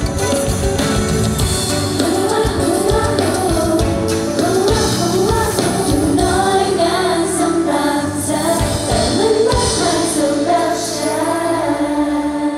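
A group of young women singing a Thai pop song live, backed by a band with drums, electric guitar and keyboard.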